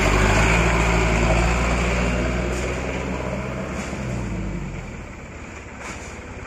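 Diesel engine of a Mitsubishi Fuso Canter dump truck loaded with oil-palm fruit, pulling away and driving off; its low engine note is loud at first and fades out after about five seconds as the truck moves away.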